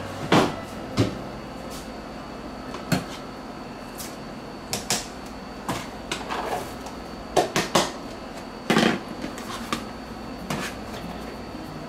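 Scattered knocks and clunks of kitchen handling: the glass lid of a slow cooker lifted off and set on the counter, and plastic containers knocked against the crock as ingredients are tipped in.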